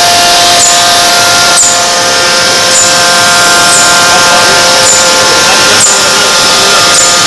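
Hot-forging machine running while a steel bar is heated red by electric resistance between its contact jaws: a loud, steady machine noise with several steady whining tones, and a short sharp tick about once a second.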